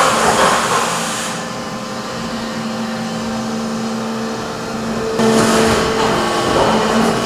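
Factory production machinery running: a steady mechanical hum with held droning tones. It grows louder and brighter about five seconds in.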